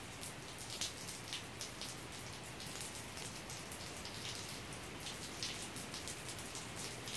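Steady heavy rain falling on pavement outside an open garage door: an even hiss with many single drops heard as sharp clicks.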